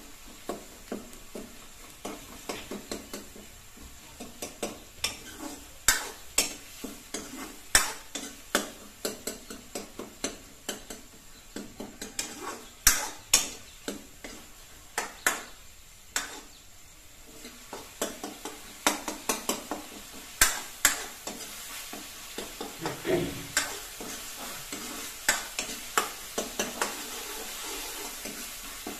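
Metal ladle knocking and scraping against a metal wok as chopped tomatoes are stirred and mashed while they fry, with a steady sizzle underneath. The knocks come irregularly, several a second at times, and are the loudest sound.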